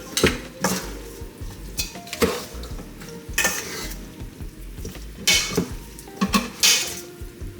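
Spoon scraping and clinking against a bowl as raw seasoned oxtail is turned and stirred, in short irregular strokes about once or twice a second.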